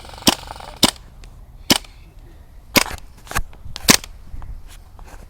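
Airsoft guns firing single shots: six sharp cracks at uneven intervals, none in bursts.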